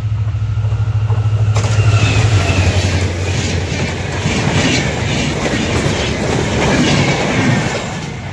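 A train passing close by on the rails. First the locomotive's low, steady drone as it draws near, then from about a second and a half in, a loud rush with a rhythmic clatter of wheels over rail joints as the train goes by.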